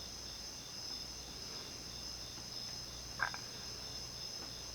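Faint steady low hum of the Miami Carey 36-inch industrial ceiling fan's cast-iron motor running, under a continuous high-pitched chirring trill that pulses a few times a second. One small tick about three seconds in.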